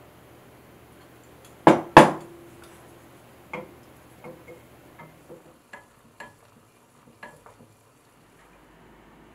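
Two sharp knocks about two seconds in, then a wooden spoon clicking and tapping irregularly against a small enamel saucepan while stirring a thick sauce.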